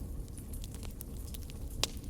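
Fire burning: a steady low rumble with scattered crackles and pops, the loudest pop near the end.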